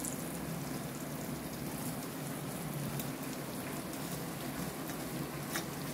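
Oil sizzling steadily in a frying pan of capsicum strips and spices as soaked thick poha (flattened rice) is tipped in, with a few faint clicks.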